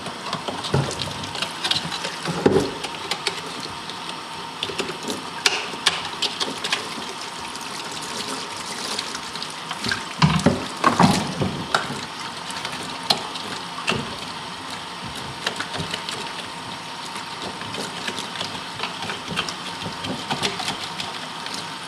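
Hot water running from a sink faucet and splashing as a boiled deer skull is rinsed out, with a few knocks and clatters, the loudest about ten to eleven seconds in.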